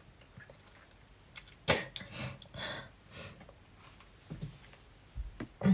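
A woman coughing, the uncontrollable coughing of a cold and asthma: a sharp cough about a second and a half in, a few breathier coughs right after it, and another sharp cough near the end.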